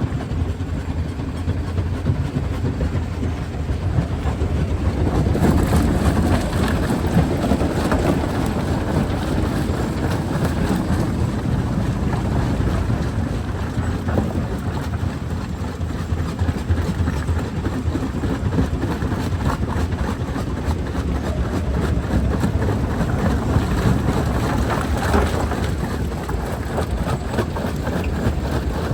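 Jaw crusher running and crushing rock: a steady heavy rumble with a constant crackle and grinding of breaking stone, swelling louder a few seconds in and again near the end.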